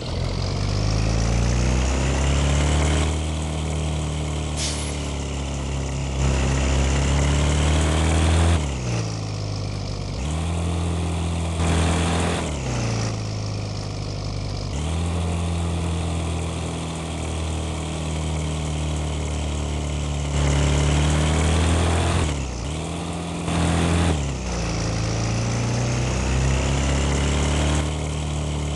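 Bus engine pulling hard, its note climbing steadily over several seconds and then dropping sharply, about five times over, as with gear changes under acceleration.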